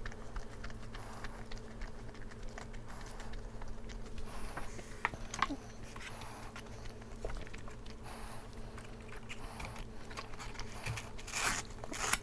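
Close-miked eating sounds: soft chewing and small wet mouth clicks while a dumpling is eaten, with a brief louder rustling noise near the end.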